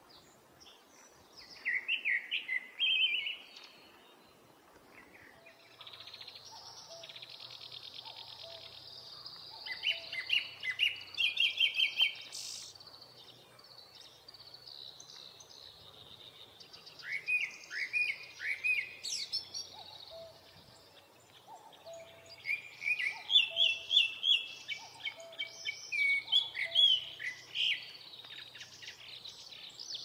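Japanese thrush singing: four bouts of loud, clear whistled phrases made of quick, repeated, sliding notes, separated by pauses of a few seconds.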